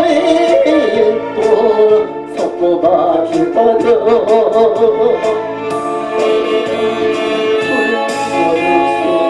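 A man singing a Korean gospel song in traditional gugak style, his voice wavering with vibrato, over instrumental accompaniment.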